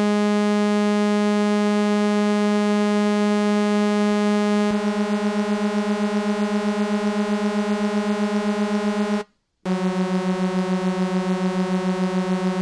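A single sustained sawtooth synth note on the Pure Synth Platinum software synthesizer, three detuned voices stacked as a JP-style super saw. About halfway through, the note starts to pulse in a quick, even wobble as the detuned voices beat against each other. Near the end it cuts off briefly and is played again, still wobbling.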